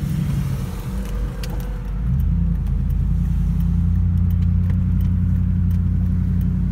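Car engine and road noise heard from inside the cabin: a low, steady drone that grows louder about two seconds in, with scattered light clicks and rattles.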